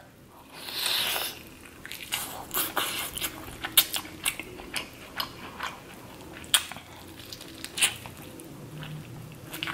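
Close-up biting and chewing of a butter-drenched corn on the cob, with many short sharp clicks as kernels are bitten off the cob.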